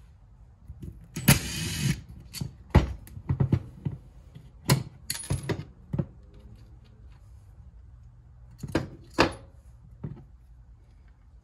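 A cordless impact driver runs briefly, for under a second, about a second in, backing out a screw. Then comes a string of sharp clicks and knocks as small metal parts and the driver are handled and set down on a wooden workbench, the last of them near the end.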